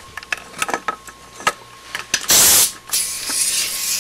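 Clicks and clatter of metal air fittings being handled, then, a little over two seconds in, a loud half-second blast of compressed air with no horn tone, followed by a steady hiss of air escaping from the air-horn grease gun's hose fitting.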